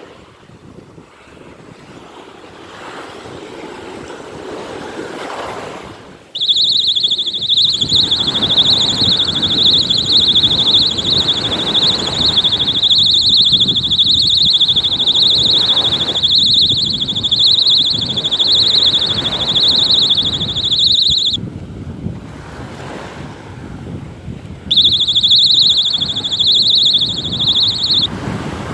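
Fire alarm sounding a loud, shrill, slightly warbling high tone. It starts about six seconds in, runs for about fifteen seconds, cuts off, then sounds again for about three seconds near the end, over wind and surf.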